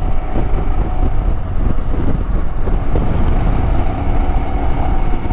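Motorcycle riding at steady speed: engine drone mixed with wind noise rushing over the microphone, with no change in pace.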